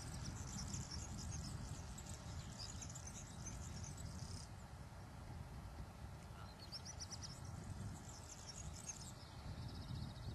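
Outdoor field ambience: rapid high-pitched chirping of wild birds or insects in two stretches, stopping about four and a half seconds in and starting again a couple of seconds later, over a steady low rumble.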